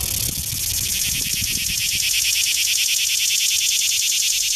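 Cicadas buzzing in a loud, high, rapidly pulsing drone that swells over the first two seconds and then holds steady. A low rumble underlies the first second and a half.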